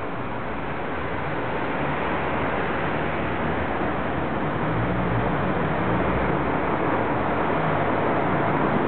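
Steady rush of road traffic, slowly growing louder.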